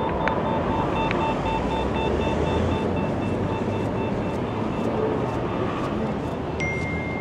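City street traffic running past steadily, with regular short ticks and repeated beeps from a pedestrian crossing signal. A new steady tone comes in near the end.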